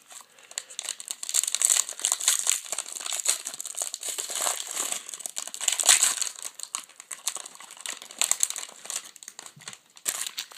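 Plastic wrapper of a trading card pack crinkling as the pack is opened and the cards are handled, a dense irregular crackle that thins out near the end.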